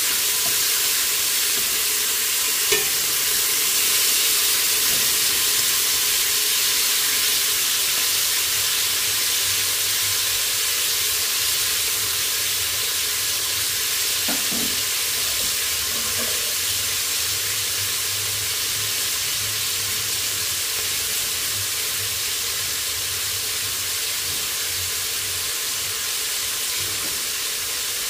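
Oxtails searing in hot olive oil in a pot, a steady sizzle as the meat browns, with one short click about three seconds in.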